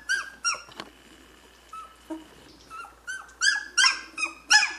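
Two-week-old Chinook puppies squeaking and whining: short high cries that drop in pitch, a couple at the start, then a quick run of them from about three seconds in.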